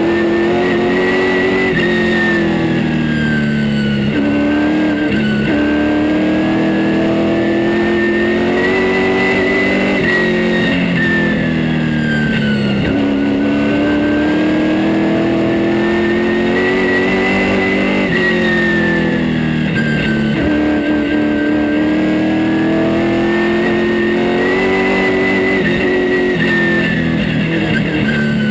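Super late model race car's V8 engine heard from inside the cockpit, lapping a short oval. It runs under power with its pitch climbing on each straight, then falls away sharply as the driver lifts for the turns, about every eight seconds.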